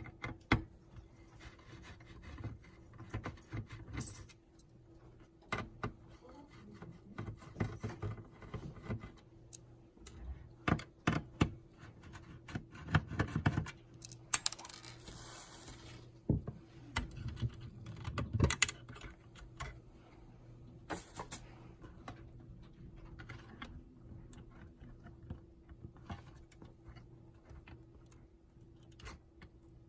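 Irregular small clicks, taps and rattles of hands handling the casing and parts of a POS terminal during the repair, with a short rustling hiss about halfway through and a faint steady hum underneath.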